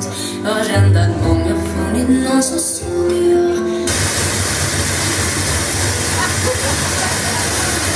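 Recorded waltz music from the first wedding dance plays through a PA speaker, then cuts off abruptly about four seconds in and is replaced by a loud, steady rushing noise.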